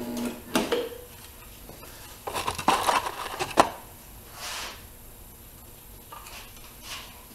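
Stud welder dent puller worked on a steel trunk lid: a brief buzz right at the start as the gun is pressed to the panel to weld a stud, then a series of sharp metallic clicks and clinks, loudest in a cluster about two to three and a half seconds in, as the stud pins and the gun's tip are handled.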